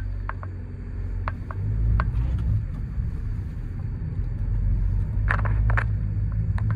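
Ford Courier's engine and road rumble heard from inside the cabin while driving, a steady low rumble that grows louder about two seconds in as the van pulls away. A few short, scattered clicks sound over it.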